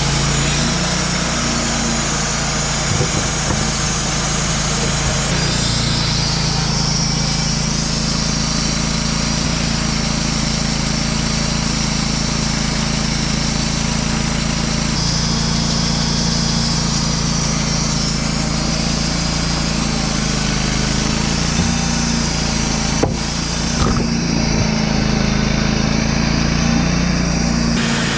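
Wood-Mizer LT35 portable sawmill running steadily, its engine humming under the hiss of the band saw, with a single sharp click late on.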